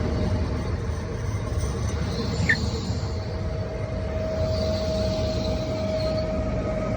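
Pesa Elf electric multiple unit running into a station platform: a steady rumble with a constant mid-pitched whine, and a short squeak about two and a half seconds in.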